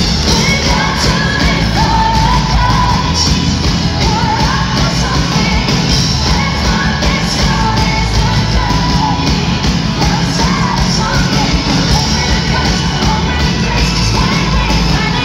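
Live pop-rock band playing loudly: a female lead vocal sung over drums, electric guitar and keyboards, with a heavy bass end, heard from within the audience.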